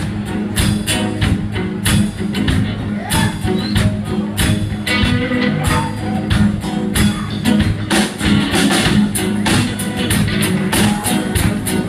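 Live rock band playing an instrumental passage: a strummed acoustic guitar over a drum kit keeping a steady beat, with no singing.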